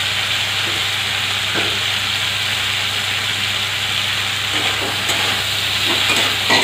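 Drumstick pieces, tomato and spices sizzling in hot oil in a karai, a steady hiss. Near the end a few light scrapes as a spatula starts stirring the pan.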